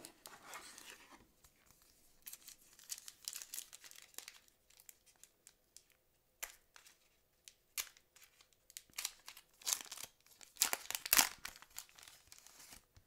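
Foil wrapper of a Fleer Ultra trading card pack crinkling and tearing as it is ripped open by hand, in irregular crackly bursts that are loudest about nine to eleven seconds in.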